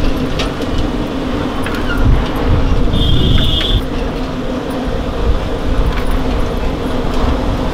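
Steady rumble of road traffic, with scattered light clicks and one brief high-pitched beep about three seconds in.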